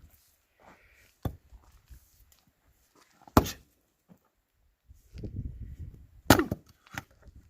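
Axe chopping firewood: sharp chops about one second in, three and a half seconds in and just past six seconds, the last two loudest, with a lighter knock near the end. A low rumbling noise runs for about a second before the last heavy chop.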